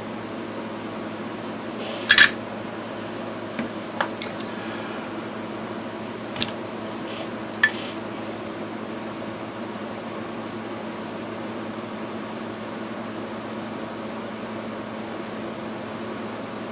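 Steady hum of a small fan, with a handful of short, sharp clicks and taps from tools working old solder off a circuit board; the loudest comes about two seconds in, the rest spread over the next six seconds.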